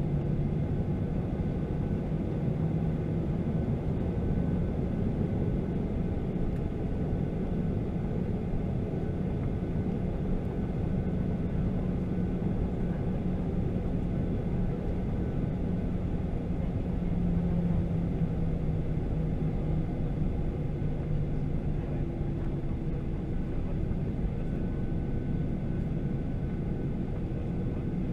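Cabin noise of a Boeing 737-800 taxiing, heard from a seat over the wing: its CFM56-7B turbofan engines at low taxi power give a steady low rumble with a droning hum that wavers slightly in pitch.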